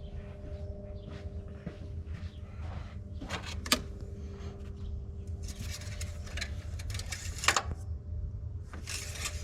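Handling noises during an engine oil top-up: scrapes and rustles with two sharp clicks, about four seconds apart, over a steady low hum.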